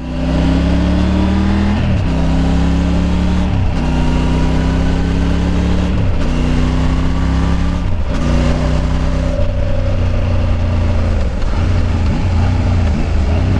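Triumph Tiger 850 Sport's inline three-cylinder engine pulling through the gears under way. The revs climb and drop sharply at each upshift, about four times in the first eight seconds. After that the engine note wavers with short dips as the throttle is eased on and off.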